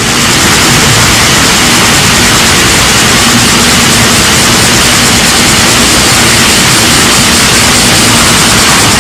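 Garden fountain jets splashing into a pond: a loud, steady rushing noise with no change throughout.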